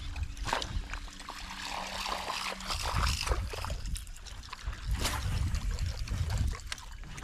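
Water trickling and splashing beside a small boat, with scattered knocks and clicks of handling, over a low rumble of wind on the microphone.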